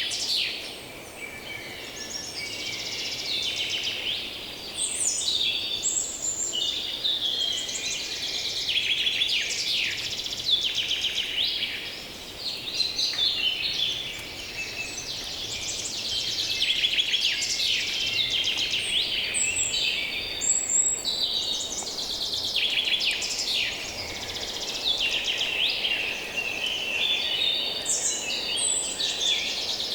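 Many songbirds singing and calling at once, overlapping chirps and trills throughout, over a faint low hum of distant human activity.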